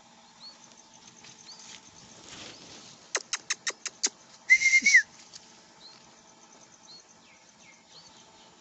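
Faint, short rising bird chirps recur every second or so. A little after three seconds in comes a quick run of about six sharp clicks, then a loud, short whistle-like note that bends at its ends.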